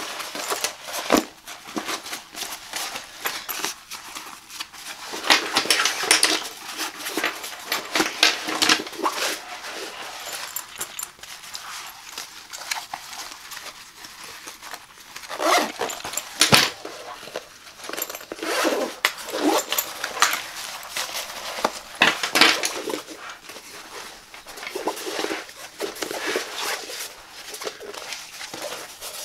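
Hands handling a fabric laptop backpack: the cloth rustles and scratches under the fingers, straps and plastic buckles click and tap, and the bag is shifted and turned over on a table with several louder bursts of handling.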